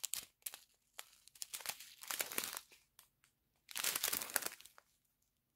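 Small clear plastic zip bags of diamond-painting drills crinkling as they are handled and flipped through, in short irregular bursts, the loudest a little under four seconds in.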